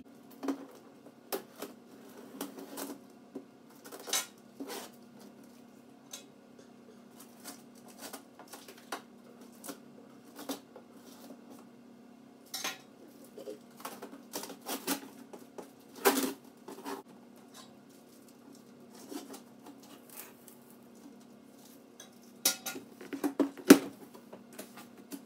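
Large cardboard chair carton being handled and opened: scattered knocks, taps and clatters of hands and flaps on the box, the loudest about two-thirds of the way in and near the end, over a faint steady hum.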